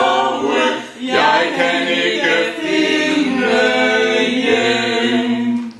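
A small group of women and a man singing a cappella in harmony, several voices holding notes together. The singing drops briefly about a second in, then ends on a long held chord that stops just before the end.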